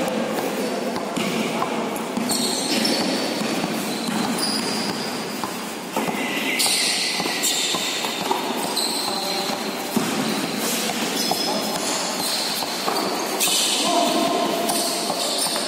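Indoor basketball game echoing in a large gym hall: the ball bouncing on the court, sneakers squeaking in short high chirps, and players calling out.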